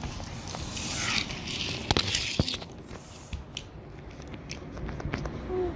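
Handling noise: rustling and scattered sharp clicks as the camera is moved close over fabric couch cushions.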